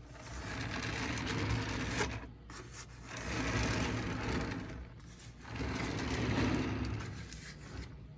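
A wooden board being turned by hand, scraping and rubbing across the mat beneath it in three long strokes with a few small knocks.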